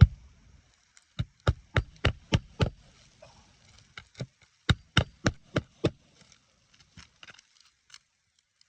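A hammer striking a roofing nail into an asphalt shingle in two quick runs of about six blows each.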